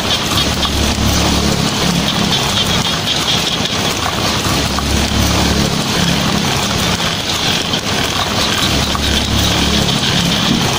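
Heavy rain falling on a tin roof: a dense, steady patter, with low rumbles of distant thunder swelling and fading a few times.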